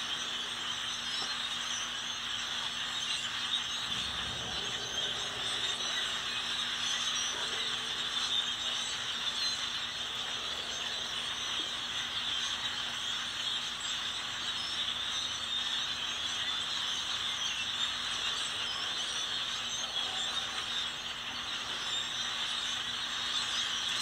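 Dense, steady chatter of a large flock of songbirds perched in bare treetops, countless calls blending into one continuous din.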